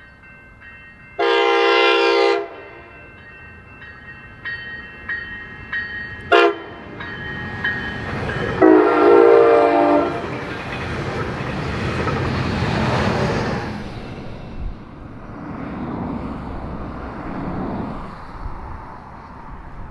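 Locomotive horn sounding for a grade crossing: a long blast, a very short blast and another long blast, over the steady ringing of crossing bells. The train then rushes past, and the sound fades out near the end.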